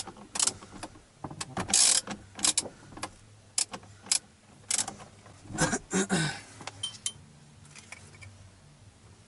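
Ratchet wrench with a 24 mm socket clicking in short bursts on a steering wheel's centre nut, with a louder clunk and rattle a little past halfway as the tool is put down and the wheel handled.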